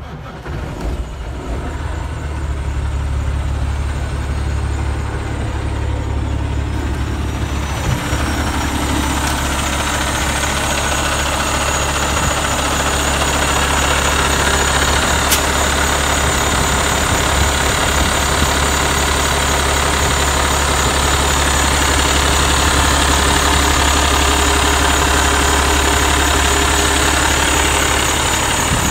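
Cummins ISX straight-six diesel in a Kenworth W900 tractor, just started and running at a steady idle. The sound gets louder and brighter about eight seconds in, once it is heard from outside the cab beside the open engine bay. There is one sharp click about fifteen seconds in.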